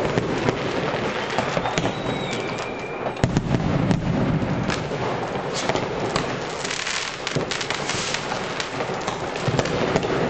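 Many consumer rockets and firecrackers going off at once, a continuous overlapping barrage of cracks, pops and bangs. A whistling tone rises and glides a couple of seconds in, and a heavier rumble of bangs follows around three to four seconds in.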